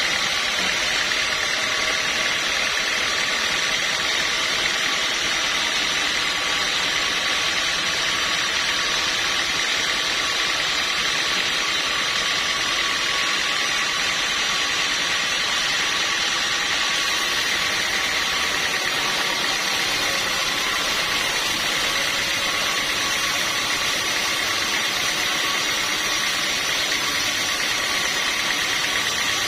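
Sawmill machinery running steadily: an even mechanical hiss with a few high, steady whining tones that hold without change.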